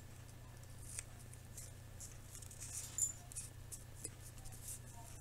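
Faint crinkling and ticking of clear tape and a plastic drinking straw being handled as the tape is wrapped around the straw joint, over a steady low hum.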